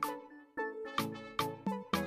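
Background music: a bright melody of short, evenly paced notes, about two to three a second.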